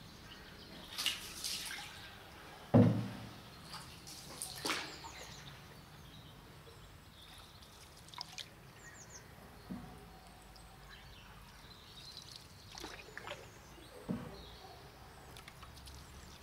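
Wooden canoe paddle dipping and pulling through calm canal water, with drips and trickles running off the blade between strokes. A few sharp knocks are heard, about three seconds in and again near the end, and there are faint bird chirps.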